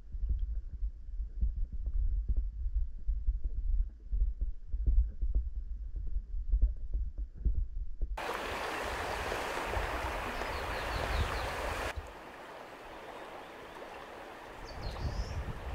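A clear, shallow river heard underwater: a low rumble with irregular soft thumps. About eight seconds in it cuts to the river's flowing water heard from above the surface, a steady rushing hiss, which drops to a quieter hiss about four seconds later.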